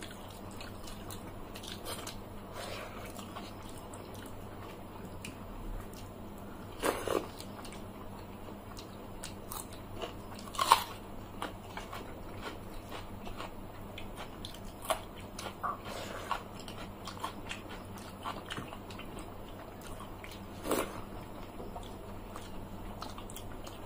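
Eating by hand from plates of water-soaked rice: fingers squishing the wet rice, chewing, and scattered short crunches and clicks, the loudest about eleven seconds in.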